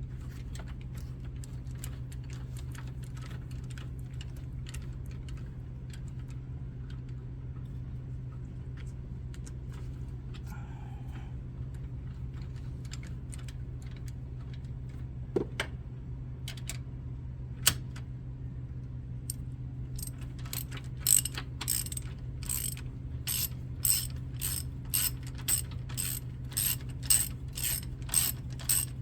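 Hand socket ratchet clicking as it turns a bolt: scattered clicks at first, then from about two-thirds of the way in an even run of sharp ratcheting strokes, about one and a half a second. A steady low hum runs underneath.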